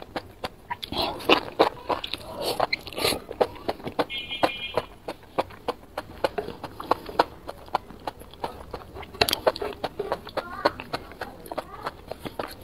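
Close-miked eating of enoki mushrooms in chili sauce: strands slurped in about a second in, then chewed with many wet mouth clicks.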